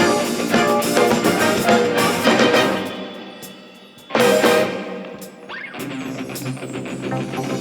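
Instrumental music: a busy passage fades out about three seconds in, a loud chord strikes at about four seconds, and a softer section with steady low notes follows.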